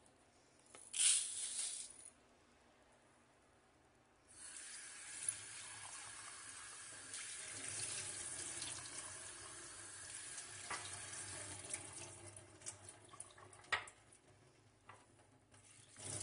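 Kitchen tap running into a plastic strainer of rice in a stainless steel sink, the water splashing through the grains as the rice is rinsed to wash off its starch. A brief loud rush about a second in; the steady water starts about four seconds in and thins out near the end, with a few small knocks.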